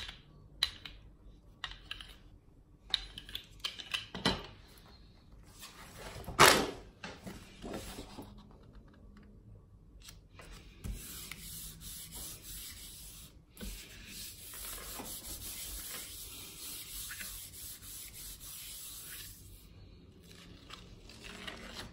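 A rubber brayer rolling and tapping on a gel printing plate, with one loud knock about six seconds in. Then comes a steady rubbing for about eight seconds as hands rub a sheet of paper down onto the inked plate to pull a print.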